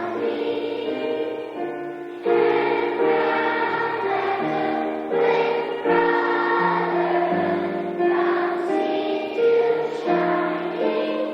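A choir of schoolchildren singing a song together, with long held notes.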